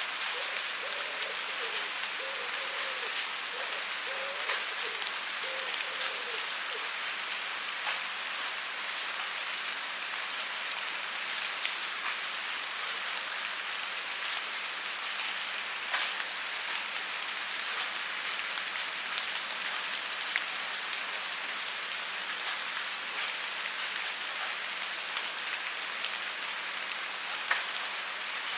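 Steady rain falling on a surface: an even hiss with scattered sharper drop impacts.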